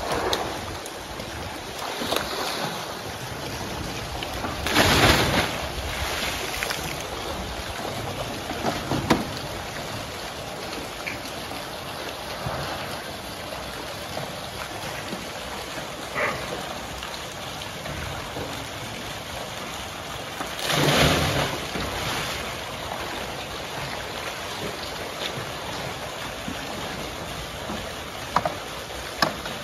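Crocodiles splashing and churning the water of a pool as they go after sunken fish, with two loud splashes about five seconds in and again around twenty-one seconds, and a few smaller ones. Underneath runs a steady rush of water from a pipe pouring into the pool.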